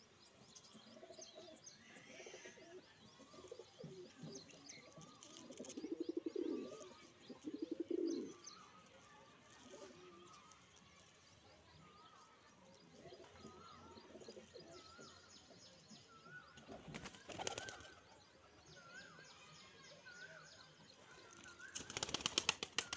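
Male fantail pigeon cooing in low throaty rolls, loudest twice about six and eight seconds in, with small birds chirping higher in the background. A flurry of wing flaps comes near the end.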